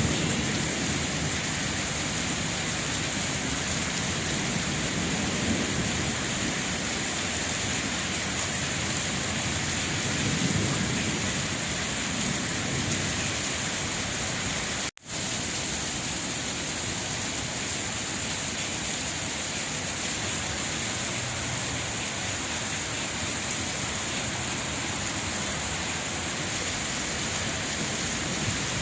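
Steady rain falling, with low rumbles swelling about five and ten seconds in. The sound cuts out for a split second about halfway through.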